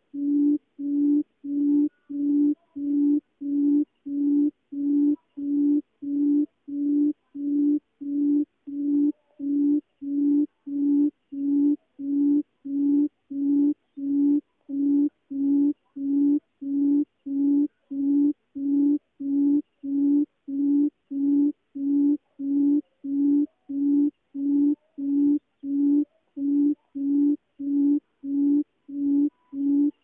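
Barred buttonquail's deep hooting call: one low hoot after another, about three every two seconds, each note swelling and then cutting off, kept up without a break.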